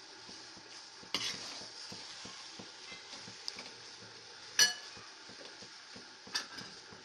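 Steel spatula stirring and scraping cooked brown rice biryani in a kadai, mixing the rice into the masala. The spatula clinks against the pan three times, the loudest about two-thirds through with a brief metallic ring.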